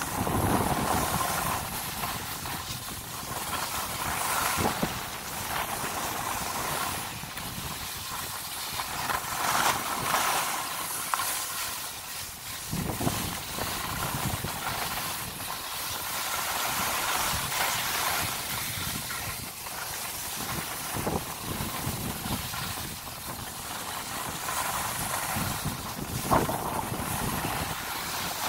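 Skis sliding and scraping over packed groomed snow, a continuous hiss that rises and falls, with wind rushing over the microphone.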